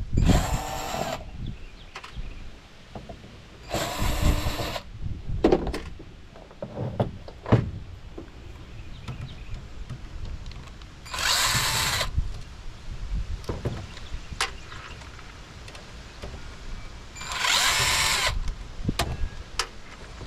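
Power drill driving screws in four short runs of about a second each, the motor's pitch shifting as it spins, backing screws out of a computer's motherboard. Light knocks and clicks of metal parts come between the runs.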